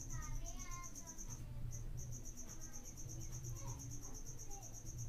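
Steady, high-pitched pulsing insect trill, breaking off briefly about a second and a half in and then resuming.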